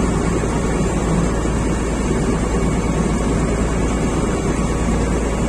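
Ferry boat's engine running steadily, a loud, even drone.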